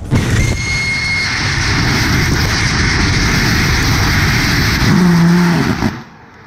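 Nitrous oxide/ethanol liquid bipropellant rocket engine firing on a static test stand: a loud, steady rushing noise that starts suddenly as the injector valve opens and cuts off about six seconds in at shutdown. A brief high whistle sounds in the first second.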